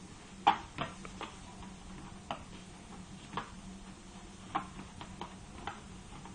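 Treadmill running with a steady low hum, a cat on its belt, and a scatter of short sharp clicks and taps about once a second. The loudest click comes about half a second in.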